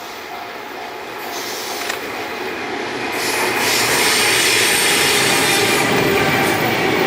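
Sleeper train hauled by an EF510 electric locomotive with 24-series coaches approaching and passing at speed. The wheel-and-rail noise grows from about three seconds in and stays loud to the end. A level-crossing bell rings in even beats at the start, soon drowned out by the train.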